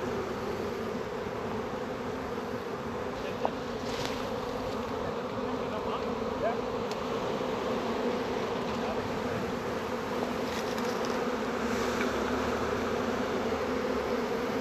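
A large honey bee swarm buzzing close around: the steady, dense hum of thousands of bees, growing slightly louder toward the end.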